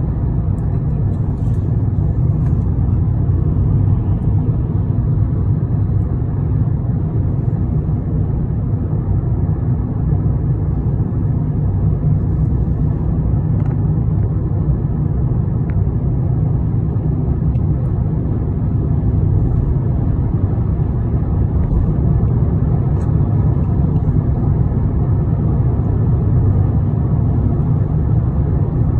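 Steady low rumble of a moving road vehicle, unbroken and even throughout.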